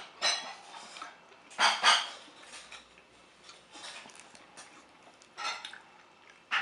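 A dog barking and yelping in short separate calls, the loudest two close together about two seconds in.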